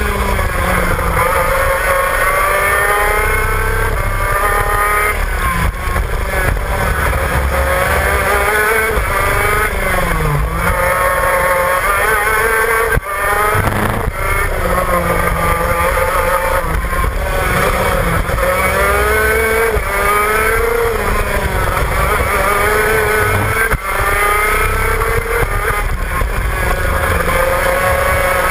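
Shifter kart's two-stroke engine at racing speed, heard on board: it revs up again and again in rising sweeps of pitch, falling back between them as it shifts and brakes, with two brief sharp drops, one about halfway through and one near the end. Wind rumble on the microphone runs underneath.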